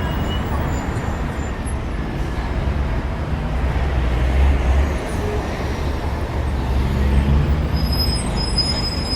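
Steady low rumble of outdoor background noise, swelling twice, with faint high-pitched tones near the end.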